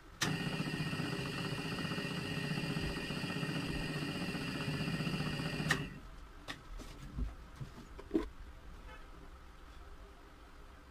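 Electric motor of a bench drill press switched on, running steadily with a whine for about five and a half seconds, then switched off with a click. A few light knocks follow.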